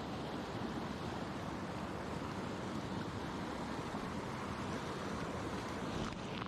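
Steady, unbroken rushing noise, the kind made by wind on the microphone or by moving water.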